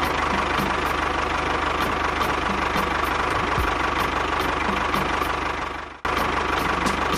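Tractor engine running steadily with a fast, even chugging beat. It drops out briefly about six seconds in and picks straight up again.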